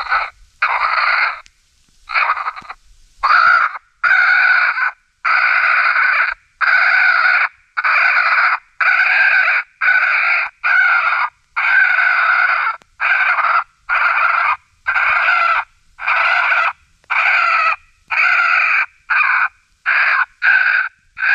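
Raccoon fight call of grown raccoons brawling: a string of loud, noisy raccoon squalls, each under a second long with short breaks, coming about once a second, with one longer pause about a second in.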